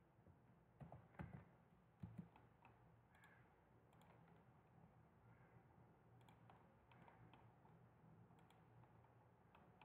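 Faint, scattered clicks of a computer mouse, a few sharp ones about one to two seconds in and lighter ones after, over near-silent room tone.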